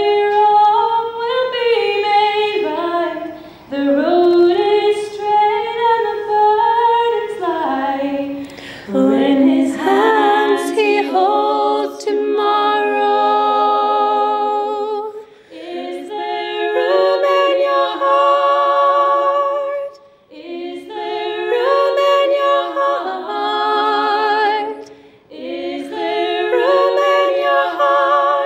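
Three women singing a Christmas song together in harmony, with no instruments heard, in phrases of a few seconds broken by short pauses.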